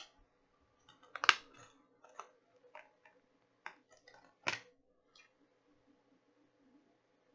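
Plastic Blu-ray case clicking and snapping as it is handled and the disc is pried off its centre hub. There are about six sharp clicks over four seconds, the loudest about a second in and another near the middle.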